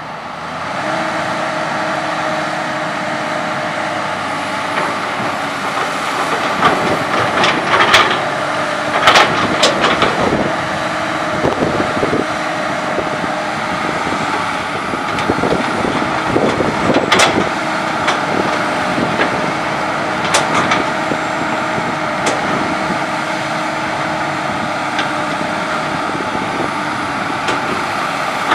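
Komatsu PC200 hydraulic excavator's diesel engine and hydraulics running steadily under load while digging, stepping up about a second in. Several sharp clanks and knocks stand out through the middle.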